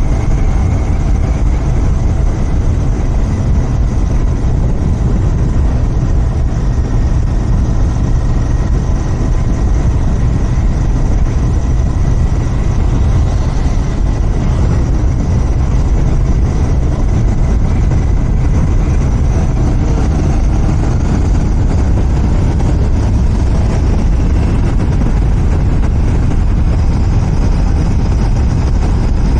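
Royal Enfield Continental GT 650's parallel-twin engine running through its stock exhaust while riding, a steady low rumble with no sudden changes.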